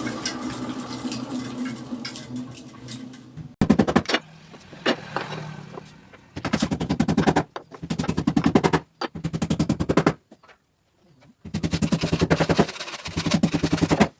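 A power tool running in about six short bursts of rapid, rattling hammering pulses, each about a second long with brief pauses between. Before the bursts there is a few seconds of irregular clatter over a low hum.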